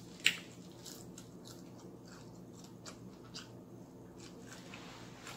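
A person chewing a mouthful of fried chicken: irregular small mouth clicks, with one sharp, louder click just after the start.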